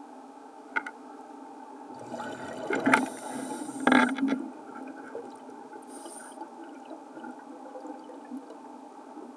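Air bubbles gurgling underwater, a burst that starts about two seconds in and is loudest twice, around the third and fourth seconds, over a steady low hum.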